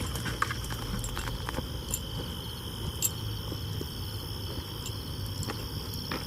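Night insects, likely crickets, chirring steadily in two high, unbroken tones, with a low rumble beneath and a few faint scattered clicks.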